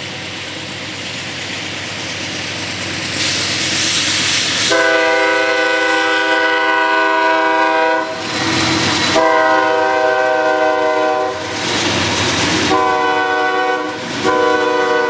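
A freight locomotive's horn sounds the grade-crossing signal as the train passes close by: two long blasts, a short one, then another long one starting near the end. Under the horn is the running noise and clatter of the locomotives and wagons on the rails, with brief rushes of noise between the blasts.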